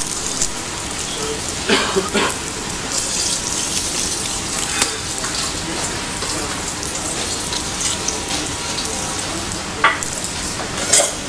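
Potato pancake batter frying in clarified butter in a pan: a steady sizzle, with a few short knocks about two seconds in and again near the end.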